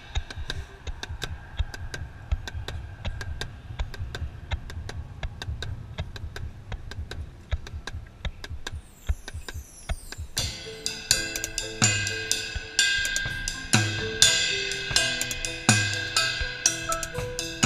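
Drum corps front ensemble playing live: a soft, evenly ticking pulse for about ten seconds, then the drum kit, cymbals and mallet keyboards come in together, with a strong bass drum hit every couple of seconds.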